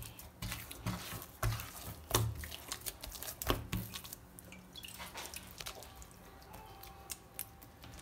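Hand kneading a soft, wet yeast dough for msemen in a ceramic bowl: irregular squelches and sticky slaps as the dough is folded and pressed, louder in the first half.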